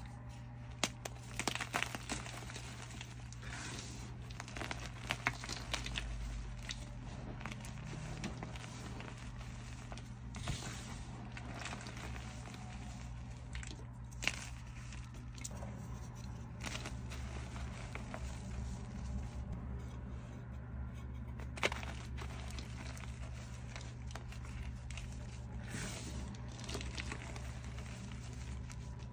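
Blocks of reformed gym chalk crushed and crumbled by hand: grainy crunching and crumbling, with sharp cracks as pieces snap apart, over a steady low hum.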